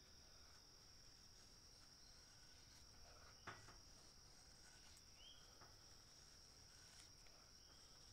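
Near silence: a faint steady high-pitched insect trill, with a few faint knife strokes shaving curls off a soft tulip poplar stick. The plainest stroke comes about three and a half seconds in.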